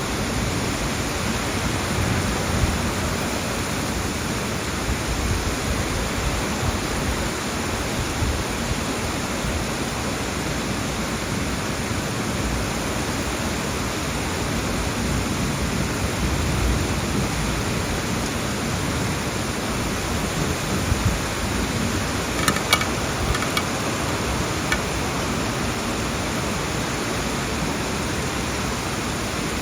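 Heavy monsoon rain falling in a steady, even hiss. A few short clicks stand out about three-quarters of the way through.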